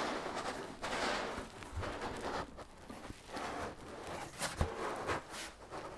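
Cardboard shipping box rustling and scraping as it is handled and tipped over, with a couple of sharp knocks about four and a half seconds in.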